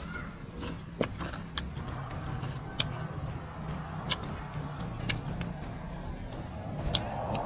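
Eating sounds: irregular sharp crunches and snaps about once a second as crispy fried cow intestine is chewed and fresh greens are picked apart by hand, over a steady low hum.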